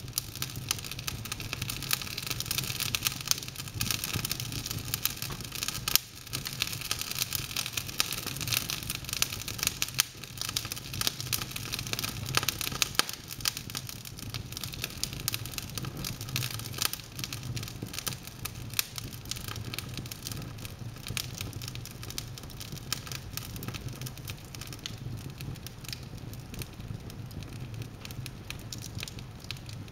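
Wood fire burning in an open fireplace: logs crackling with dense, irregular pops and snaps, a few louder than the rest, over a low steady rumble.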